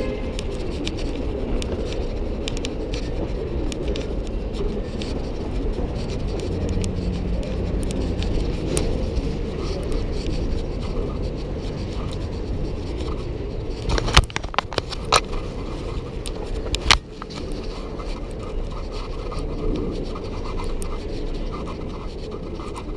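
Street noise of a busy city avenue, mostly a low steady traffic rumble, with scratching and rubbing handling noise on the camera's microphone throughout. A few sharp knocks come close together about fourteen to seventeen seconds in.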